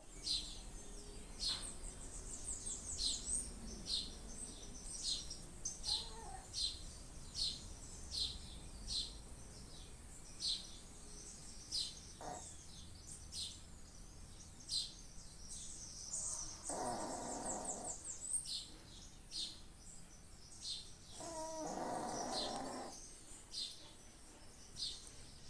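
A dog snoring twice, each snore about a second and a half long, one about two-thirds of the way in and one near the end. Under it, small birds chirp all along: short high chirps about twice a second early on, thinning out later.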